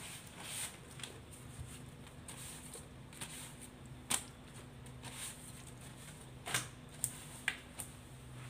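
Banana leaf sheets rustling and crackling as they are handled and sorted, with a few sharp crackles in the second half, over a low steady hum.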